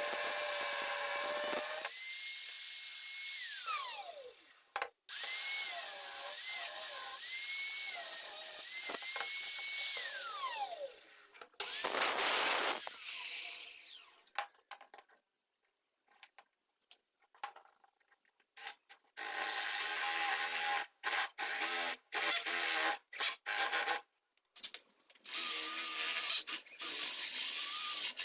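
Electric hand drill running in short bursts, its motor whine rising in pitch, holding, then falling again as the trigger is squeezed and released; it stops and starts abruptly several times.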